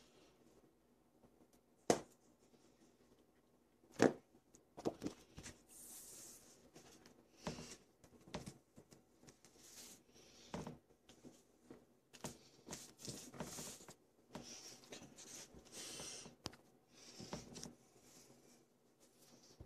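Hands rubbing and handling a photo print and an acrylic panel on a work table: scattered rubs and rustles, with two sharp knocks about two and four seconds in.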